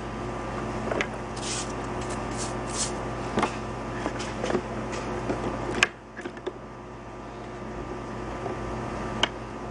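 Scattered clicks, knocks and short scrapes as metal hinges and a container are handled, over a steady machine hum. A sharp knock about six seconds in, after which the low part of the hum drops away.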